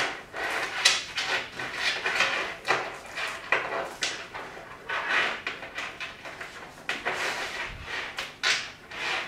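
Bicycle chain clinking and rattling in irregular bursts as it is handled and routed by hand.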